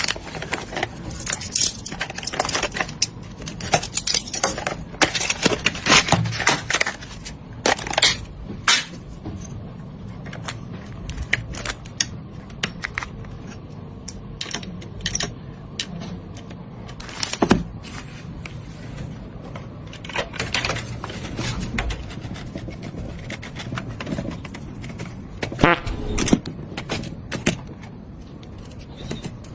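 Hands working on computer parts during a PC assembly: irregular clicks, taps and scrapes of small metal and plastic pieces, with a few sharper knocks.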